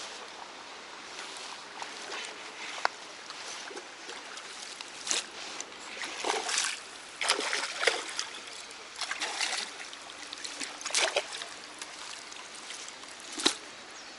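Water splashing in short, irregular bursts, with a sharp knock near the end.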